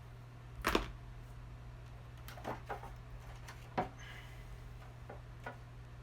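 A few sharp clicks and knocks of parts and tools being handled during a motor reassembly, the loudest about a second in, over a steady low hum.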